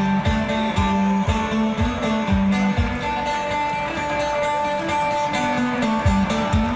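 Live instrumental music: a banjo picked and strummed over a kick-drum beat of about two thumps a second, with held notes underneath.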